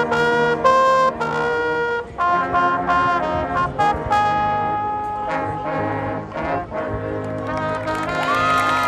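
High school marching band's brass section playing: trombones and trumpets sounding held notes and a moving melody over a full band.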